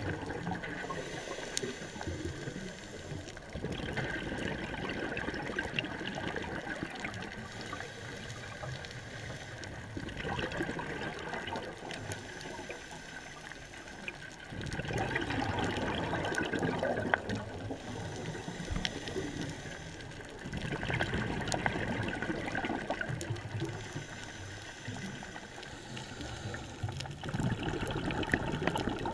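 Underwater sound of a scuba diver breathing through a regulator: a louder rush of exhaled bubbles comes about every five or six seconds, with quieter hissing between the breaths.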